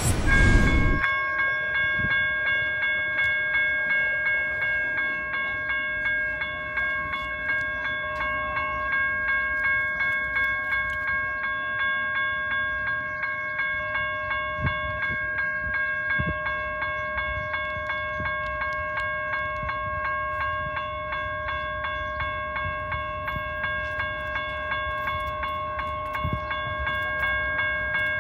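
A railroad bell ringing in a steady, rapid rhythm as an Amtrak passenger train approaches the station, over the low rumble of the train. A short whoosh at the very start.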